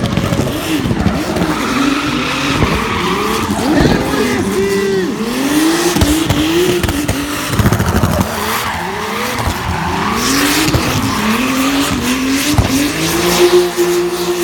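Ford Sierra drift car with a BMW three-litre turbo engine, revving up and down over and over as it drifts, its tyres squealing and spinning. Near the end the revs are held steady for a moment.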